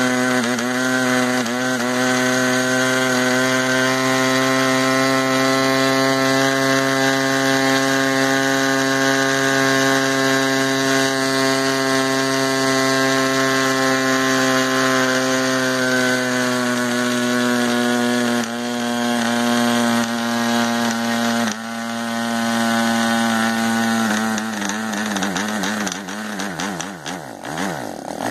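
OS Max 40FP model aircraft engine converted to diesel with a Davis Diesel head, running fast and steady with its propeller on a test stand. Its pitch sags and shifts a few times as the compression screw is adjusted, then it runs unevenly and dies near the end.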